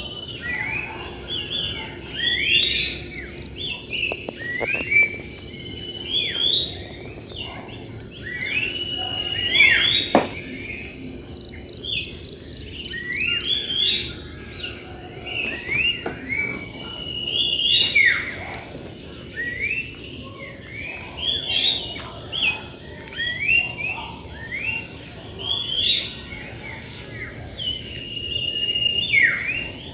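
Wild birds chirping and singing in a dense, continuous chorus of short rising and falling notes, over a steady high-pitched drone of insects.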